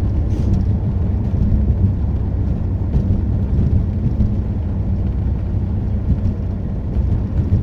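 Road and engine noise inside a moving car's cabin: a steady low drone with tyre rumble on a snow-covered road.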